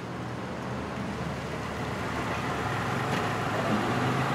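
Steady distant engine rumble with a low hum, growing slowly louder.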